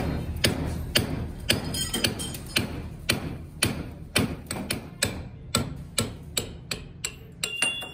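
Repeated hammer blows on metal, about two a second, coming faster and a little quieter in the second half. One blow near the end leaves a short metallic ring.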